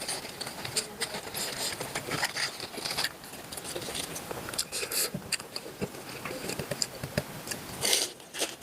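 Close-miked chewing of spicy cooked octopus: irregular wet smacks and clicks from the mouth, with a louder run of them near the end.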